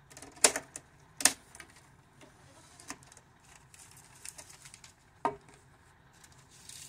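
Sharp plastic clicks and knocks from cutting a bag off a roll of vacuum-sealer film with the sealer's built-in sliding blade, with light rustling of the plastic film in between.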